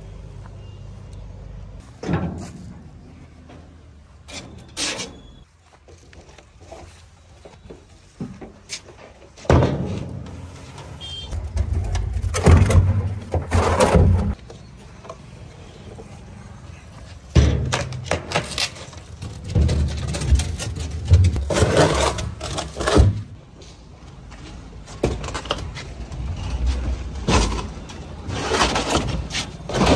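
Plastic drums being tipped, rolled and set down on a tractor trolley's metal bed. Hollow knocks, scrapes and rumbles come in several bouts with quieter gaps between.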